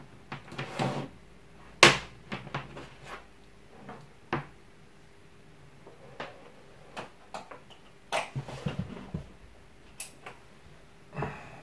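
Scattered clicks and small knocks as a Parkside PFBS 160 B2 rotary multi-tool and its cord are handled on a tabletop, the sharpest about two seconds in. The grinder's motor is not running.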